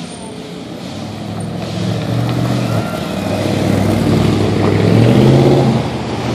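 Cars and pickup trucks driving past, engine and tyre sound swelling to its loudest about five seconds in as a pickup goes by, then fading.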